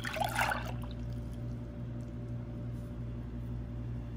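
Pineapple juice poured into a glass measuring bowl, splashing briefly and stopping under a second in. A steady low hum runs underneath.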